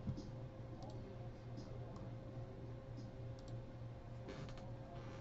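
Scattered clicks of a computer mouse and keyboard, with a quick run of clicks a little over four seconds in, over a faint steady hum.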